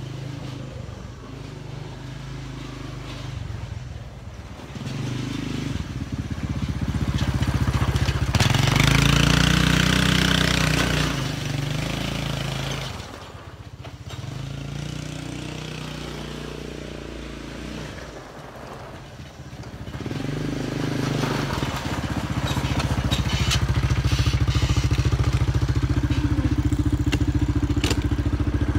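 A small vehicle's engine running. It grows louder about eight seconds in, eases off around thirteen seconds, then rises again and stays loud for the last several seconds.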